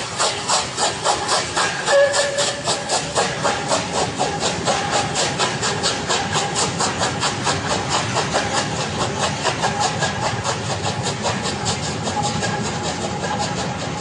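Steam locomotive working hard with a train, its exhaust beats coming evenly and getting quicker and less distinct as it pulls away. A short squeal sounds about two seconds in.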